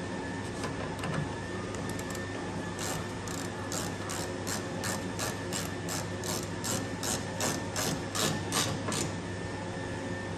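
Hand ratchet clicking in a steady run, about three clicks a second, as a headlight mounting bolt is driven in.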